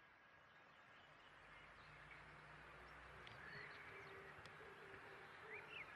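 Faint outdoor ambience fading in, with a few short bird chirps scattered through it.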